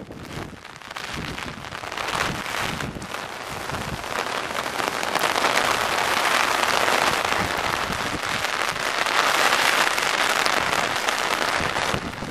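Rain falling on an umbrella held over the microphone: a dense patter of drops that swells about two seconds in and is heaviest through the middle.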